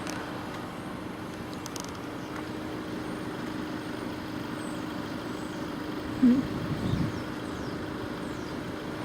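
Road traffic: a steady hum of engines and tyres, with one vehicle passing more loudly about seven seconds in.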